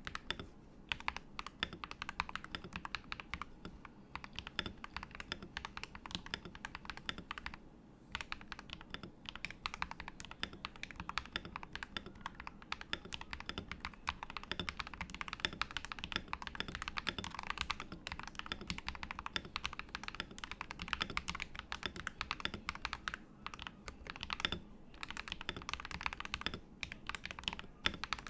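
Typing on an MK870 mechanical keyboard with Akko Vintage White switches and PBT keycaps: a fast, steady run of key clacks, with brief pauses now and then.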